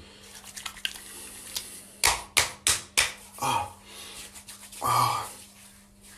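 Hands rubbing bay rum aftershave together, then slapping it onto the face: four sharp slaps within about a second, followed by two short grunts from the sting.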